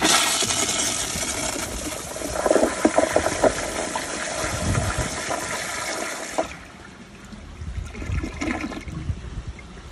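Kohler Kingston toilet flushing: a loud rush of water through the bowl with a few sharp gurgles around the middle, cutting off about six and a half seconds in.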